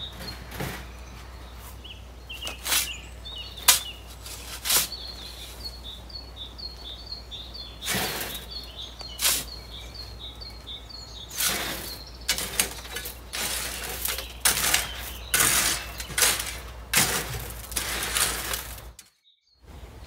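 Steel shovel digging into a sand pile and tipping sand into a metal wheelbarrow: irregular scrapes and gritty pours, coming more often in the second half. Birds chirp in the background during the first half.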